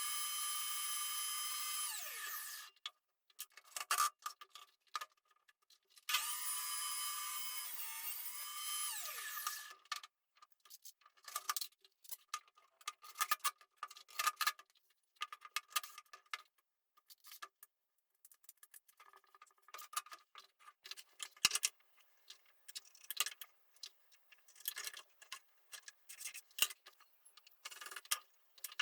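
A small power tool's electric motor runs twice for a few seconds each time, a steady high whine that dips and then winds down as it is switched off. After that come many irregular light clicks and knocks.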